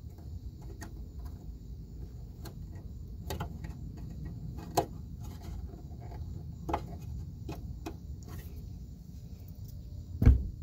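Scattered light clicks and taps of a small spring and plastic parts being worked into a pickup's fog light mounting by hand, with a sharper knock near the end, over a low steady rumble.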